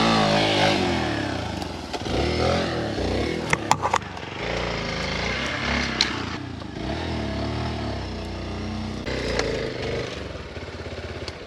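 Hero Xpulse 200 single-cylinder dirt bike engine revving up and down under load while climbing a steep trail, with a few sharp knocks along the way.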